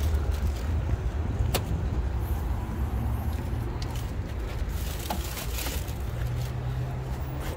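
Steady low rumble of cars in a car park, with a sharp click about a second and a half in and a few lighter knocks and rustles later as a car's rear hatch is opened and a bag is loaded.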